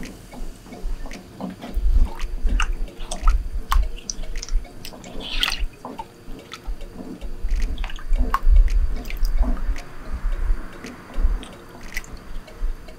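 Silicone spatula stirring thin milk pudding mixture in a non-stick pot: liquid sloshing and dripping, with scattered small clicks and taps of the spatula on the pot and occasional low bumps.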